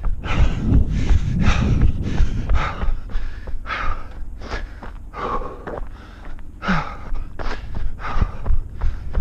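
A runner's heavy breathing, a hard breath about once a second, over the thud of his footfalls.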